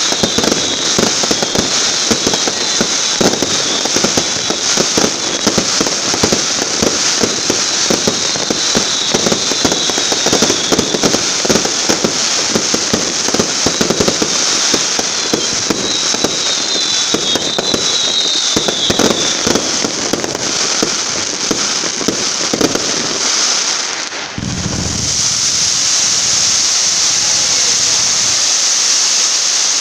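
Fireworks display: a dense, rapid crackling of many small bursts with faint falling whistles. About 24 seconds in it gives way to a steady hiss as streams of sparks shoot upward.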